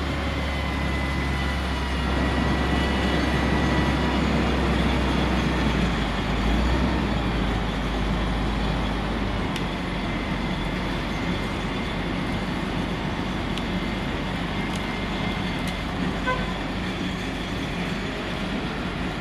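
Heavy crane's diesel engine running steadily under load, with a low hum that drops away about nine seconds in.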